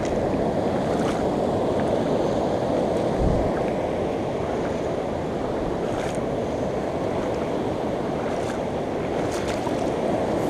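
Steady rush of a flooded river running high and fast past the bank. A brief low bump about three seconds in.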